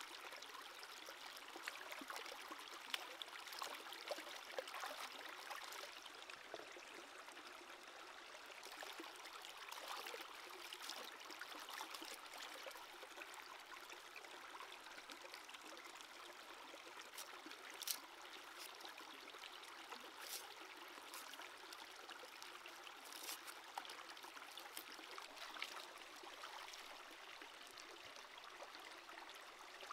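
Shallow stream trickling steadily over rocks, with scattered small splashes and clicks from hands rinsing vegetables in the water.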